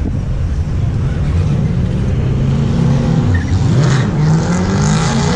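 Vehicle engines at a drag strip: a low engine note wavers up and down as it is revved. From about three and a half seconds in, a higher engine note rises steadily as a vehicle accelerates hard.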